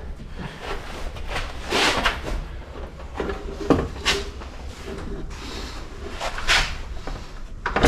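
Scattered knocks and clanks of a metal outboard-motor lift bracket being handled and fitted against a boat's transom, three of them sharper than the rest.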